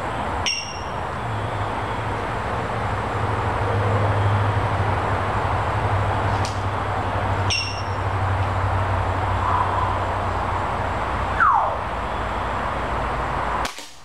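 Gamo Bull Whisper IGT .177 gas-piston break-barrel air rifle firing once near the end: one short, sharp, fairly quiet crack. Before it, an African grey parrot gives a few short chirps and clicks and, a couple of seconds before the shot, one loud falling whistle, over steady low background noise.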